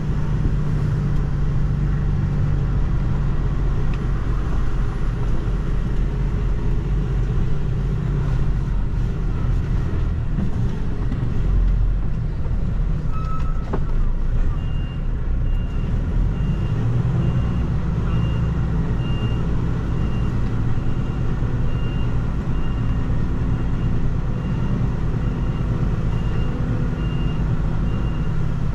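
Iveco HGV's diesel engine running, heard from inside the cab as the truck turns around, then about halfway through a reversing alarm starts beeping roughly once a second as the truck backs into a parking spot.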